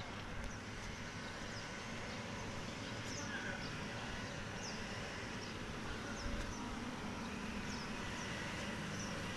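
Electric inflatable air blower running steadily, keeping the slide inflated. Short, high bird chirps come every second or two over it.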